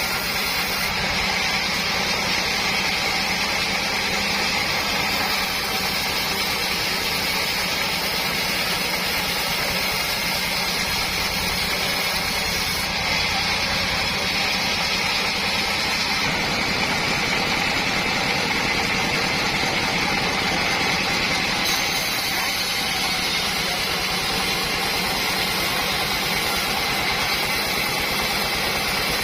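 Homemade board sawmill running with a steady mechanical drone that holds an even level throughout.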